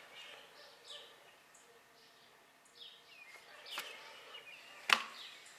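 Faint bird chirps, several short falling calls, over quiet background noise, with one sharp click about five seconds in.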